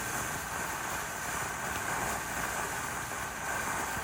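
Ground fountain firework spraying sparks with a steady hiss that starts abruptly and holds even, with no bangs or crackles.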